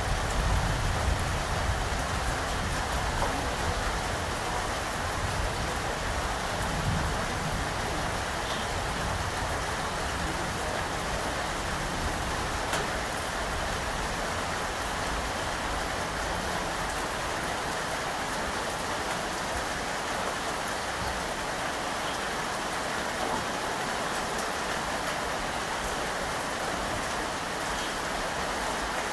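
Steady rain falling, an even hiss of many drops, with a low rumble in the first several seconds that dies away.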